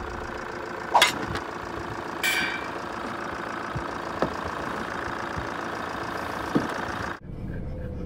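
Motorhome engine idling steadily, with a few light knocks and a brief scraping noise about two seconds in. The sound changes abruptly just after seven seconds.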